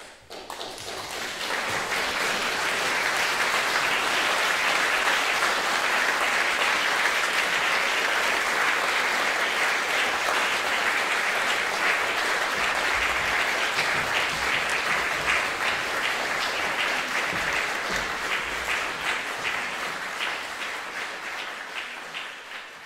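Audience applauding, swelling over the first couple of seconds, holding steady, then thinning out near the end into scattered separate claps.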